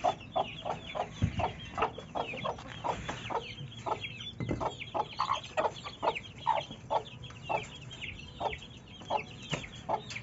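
A mother hen clucking in quick short notes, about three a second, while her chicks peep constantly in high, falling chirps. Two dull knocks sound early on and about four and a half seconds in.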